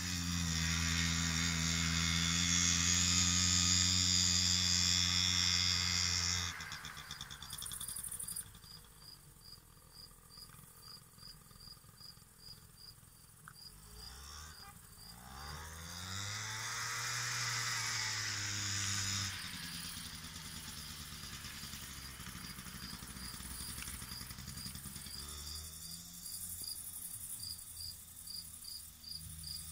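Keeway Hurricane 50cc scooter's two-stroke engine, held on the throttle for about the first six seconds, then dropping back, rising in pitch again about halfway through and once more near the end. Crickets chirp steadily in a fast, even rhythm throughout.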